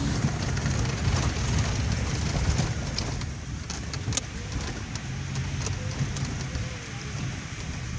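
Toyota Prado heard from inside the cabin while driving on a rough gravel road: a steady low rumble of engine and tyres, with a few sharp clicks and knocks over it.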